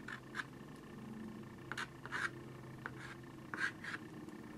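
Daniel Smith watercolor stick drawing on paper in several short, scratchy strokes, often in pairs.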